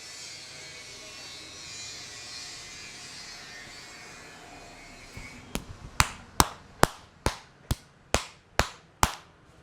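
A barber's hands striking a person's head during an Indian head massage: a few soft taps about five seconds in, then a run of about nine sharp, loud slaps at an even pace of a bit more than two a second, over a steady background hiss.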